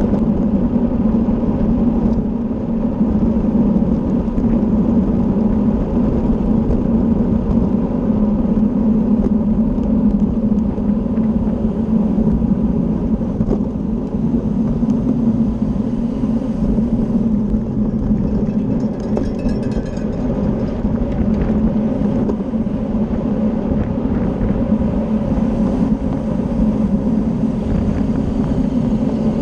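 Steady wind rush over the microphone and tyre hum of a road bicycle racing at speed in a criterium, a continuous low drone without let-up.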